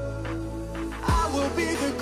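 Background pop song with a steady bass line. About a second in, a deep falling bass hit lands and the sung vocal comes back in.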